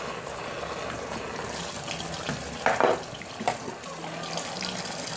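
Kitchen tap running steadily into a sink, with a few clattering knocks of dishes or utensils about two and a half to three and a half seconds in.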